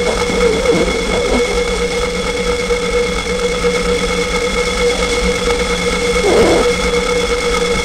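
Homemade noise instrument droning: several steady high and middle tones over a dense hiss, with rapid fluttering sweeps in the first second or so and a brief swooping dip in pitch about six and a half seconds in.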